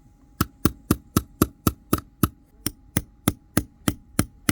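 Steady hammer blows on a screwdriver shaft, about three to four a second, each with a short metallic ring: the bent shaft being straightened by hand without a vise.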